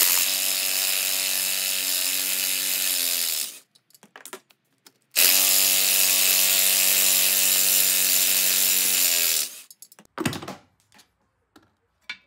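Cordless impact driver backing out the oil filter housing bolts on a Polaris ProStar 570 crankcase, in two steady runs of about four seconds each, the pitch falling as each run stops. A few short clicks follow near the end as the loosened housing is handled.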